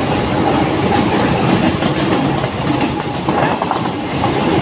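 Mumbai suburban local train running at speed through a tunnel, heard from the open doorway: loud, steady noise of the wheels on the rails, with a faint steady whine.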